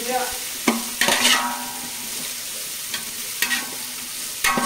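Sliced onions and whole spices sizzling in oil in a large metal pot, stirred with a metal spatula that scrapes the pot about four times, each scrape ringing briefly off the pot.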